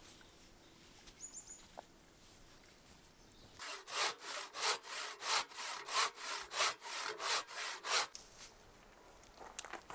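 Hand tool worked back and forth on a piece of olive wood: about a dozen quick scraping strokes, roughly three a second, starting a few seconds in and stopping about four seconds later.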